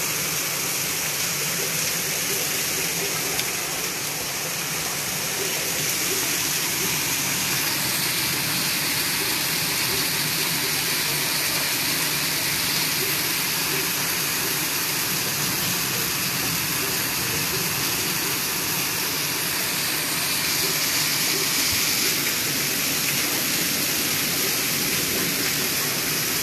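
Torrential rain pouring down in a steady, dense hiss.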